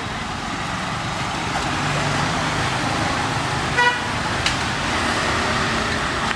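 Steady street traffic noise from passing vehicles, with one short vehicle horn toot about four seconds in.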